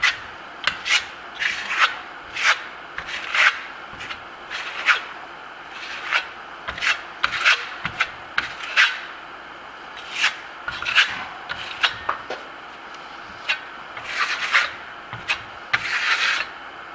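Stainless-steel Pavan Venetian plaster trowel scraping Grasello lime plaster across a primed board in short, repeated rasping strokes, about two a second with a brief pause around the middle. The plaster is being laid on and spread thin for the first coat.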